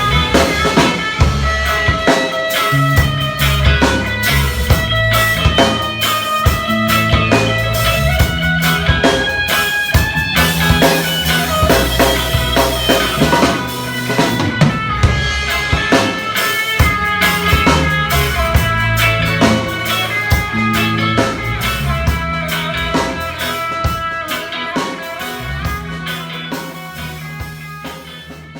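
Instrumental band music with drum kit, electric guitar and bass playing a steady beat, fading out near the end.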